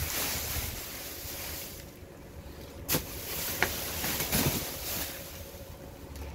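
Plastic trash bags rustling as they are handled, fading after about two seconds, with a sharp click about three seconds in.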